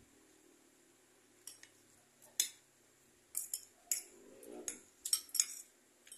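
Spoon and fork clinking and scraping on a ceramic plate while eating rice and fish: about a dozen short, sharp clinks at an uneven pace.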